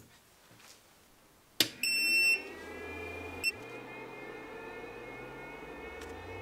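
TwoTrees Sapphire Plus 3D printer powering up to load new firmware. About a second and a half in there is a sharp click, then the printer's buzzer gives a loud high beep for about half a second and a short second beep. Its cooling fans then spin up, rising in pitch into a steady whine and hum.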